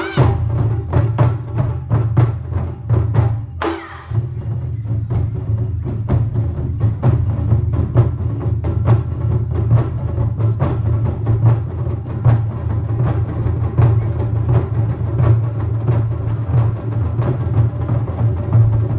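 Percussion music: steady low drumming with rapid sharp wooden clicks.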